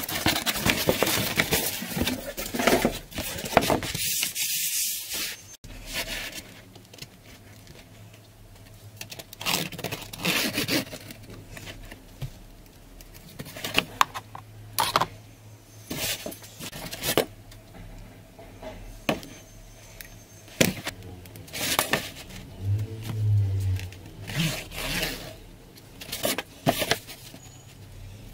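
Sheets of corrugated cardboard being handled and slid against one another, a continuous scraping rustle that stops abruptly about five seconds in. Then come short, scattered scrapes and taps as a steel ruler is laid on the cardboard and lines are marked along it.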